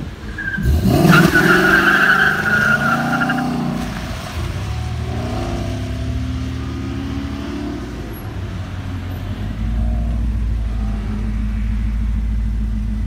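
2013 Ford Mustang launching hard: the engine revs up with the tyres squealing for about three seconds. The engine note then rises and falls through the gears, fading as the car pulls away.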